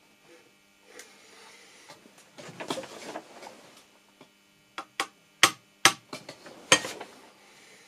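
A workpiece is shuffled on a metal surface plate, then a screwdriver handle gives about five sharp light taps on the dial-indicator setup within two seconds.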